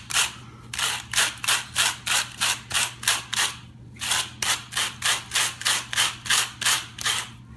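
Fine-wire slicker dog brush raked in quick repeated strokes through a Roomba's roller brush, scratching out tangled dog hair, about four strokes a second with a short break a little under halfway through.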